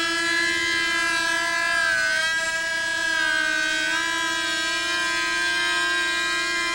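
Small model-aircraft engine on a home-built VTOL model, running at high revs with a steady high-pitched whine during take-off and climb. Its pitch dips slightly about two seconds in and picks up again near four seconds.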